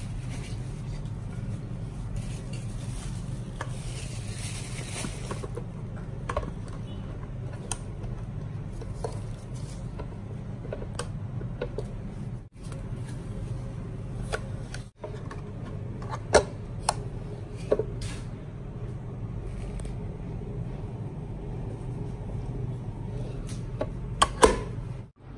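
Scattered clicks and knocks of a retro Belgian waffle maker being handled, its hinged lid opened and lowered, over a steady low hum. The sharpest knocks come a few seconds past the middle and again just before the end, as the lid comes down.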